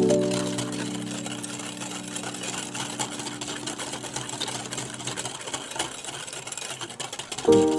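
Rapid, steady mechanical clatter of batter being mixed in a bowl. Background music fades out over the first few seconds, and new music starts shortly before the end.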